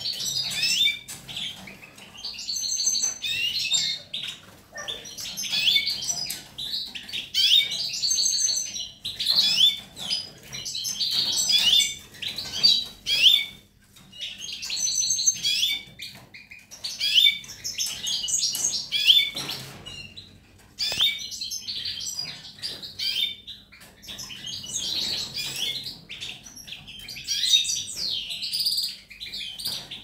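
Caged European goldfinches singing: fast, liquid twittering song with trills, in runs of a second or a few seconds separated by short pauses.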